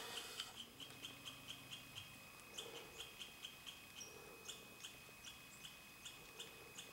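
Faint, short high-pitched chirps repeated about three times a second from a small calling creature, becoming less regular after the middle.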